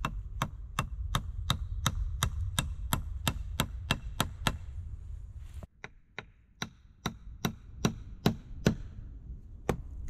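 Hatchet blows knocking on split logs of wood, quick and even at about three a second, then after a short break a few louder, more spaced blows.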